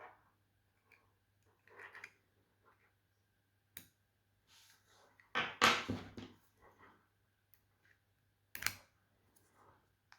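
Small plastic adapter casing being handled and pried open. There are scattered clicks and scrapes, a sharp click a little before the middle, a longer, louder scraping rub just after it, and another sharp click near the end.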